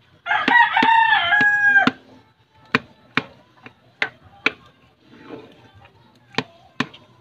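A rooster crows once, a loud call about a second and a half long. Then comes a string of about seven sharp knocks, spread unevenly over the next few seconds.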